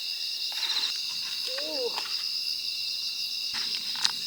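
Steady chorus of crickets chirping in a continuous high band, with a single sharp click near the end.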